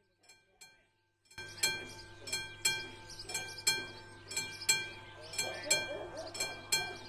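Classic level-crossing warning bell of an AŽD 71 signal ringing in even strokes, about three a second, warning that a train is approaching. The bell is silent for the first second and a half, then rings steadily.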